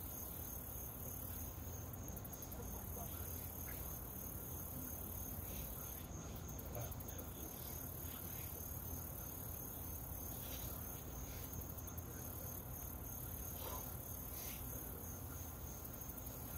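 Insects singing: a faint, high, steady trill over a soft background hiss.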